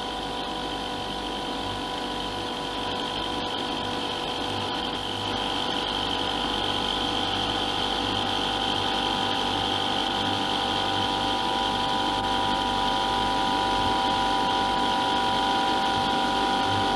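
Small Stirling machine, driven in reverse by its electric motor to work as a heat pump, running steadily: a continuous mechanical hum with a steady whine that slowly grows louder.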